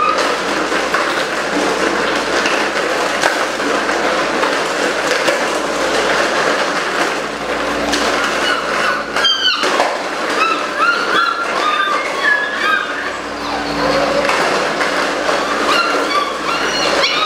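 Belgian Malinois puppies yelping and whining in short, high squeaks as they wrestle, with one sharp falling squeal about nine seconds in. Underneath runs a loud, steady rushing noise.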